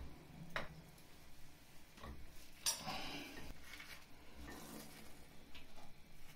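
Metal clinks and scraping as a radiator return valve is unscrewed by hand from its threaded fitting, a pipe wrench clamped on the fitting. A few short clinks, the sharpest about two and a half seconds in.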